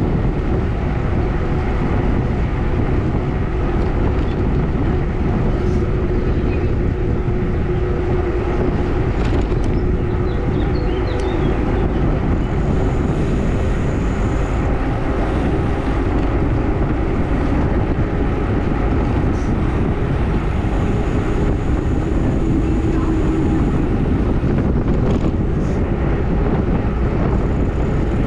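Steady wind rumble buffeting the microphone of a camera on a road bike riding downhill at speed.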